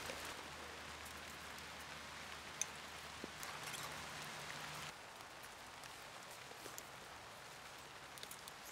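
Faint, steady outdoor background hiss with a few soft clicks.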